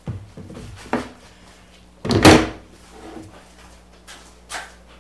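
Wood pieces and tools handled on a plywood workbench: a few knocks in the first second, then a short louder clatter about two seconds in, followed by lighter knocks.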